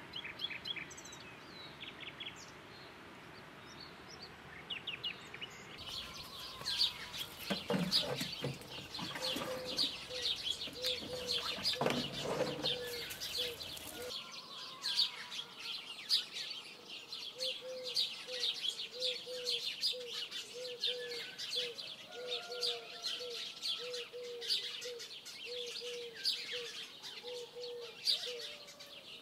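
Small birds chirping and singing in a dense chorus of rapid short high chirps. From about nine seconds in, a lower short note repeats about once a second under them. The first few seconds hold only a faint steady hiss with a few scattered chirps.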